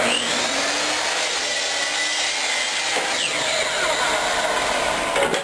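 Power saw cutting through a half-inch cypress board to trim off the excess, a steady cutting noise with a motor whine that stops abruptly near the end.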